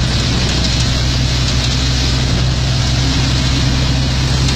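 Steady, loud drone of heavy vehicle engines, with wind and tyre noise on a dirt road, heard from a moving vehicle while passing close alongside a four-trailer coal-hauling road train.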